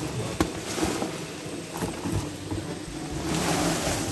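Live shrimp tipped from a sack onto crushed ice in a plastic tub: a rustling, crackling pour with scattered clicks of shrimp and ice, growing louder near the end.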